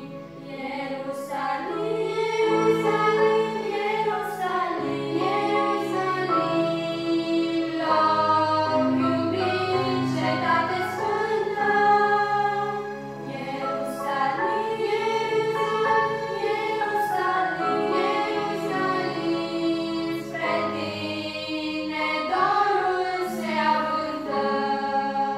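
Female vocal group singing a Romanian hymn in close harmony into microphones, with a low held accompaniment underneath.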